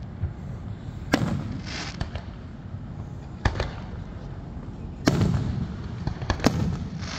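Fireworks display: four loud bangs of shells bursting, about one to two seconds apart, each trailed by a short echo, over a low continuous rumble.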